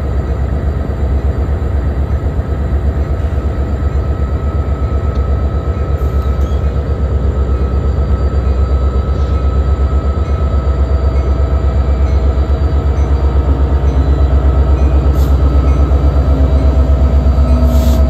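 Union Pacific diesel locomotives rolling slowly past, engines rumbling deep and steady, growing louder as they come closer.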